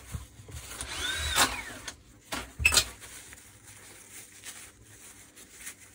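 Handling noise from the parts of a dismantled Makita rotary hammer on a workbench: a short scrape about a second in and a few sharp knocks between one and a half and three seconds in, then only faint background.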